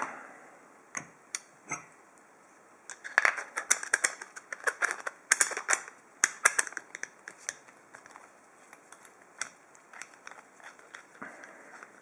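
Sharp metallic clicks and clinks of a hex key and the steel body of a large ASSA padlock being handled, as the Allen key is fitted into a recessed screw to take the lock apart. The clicks come in a dense run a few seconds in, then thin out to scattered light ticks.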